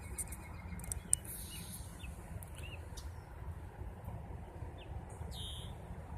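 A few short, high bird chirps over a steady low outdoor rumble, with a single sharp click about a second in.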